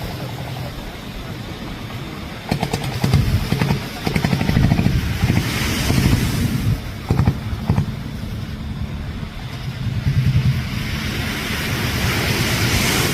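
A boat's engine running steadily, with wind and water noise that swells louder for a few seconds at a time.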